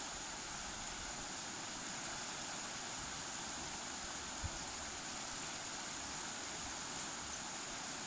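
River water rushing over a shallow rapid, a steady, even hiss. A single soft low thump about halfway through.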